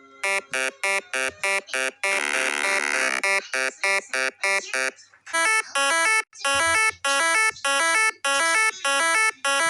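A buzzy electronic tune like a ringtone. Quick short notes lead into a chord held for about a second, then more quick notes. From about five seconds in it plays slower, evenly spaced notes, about two a second.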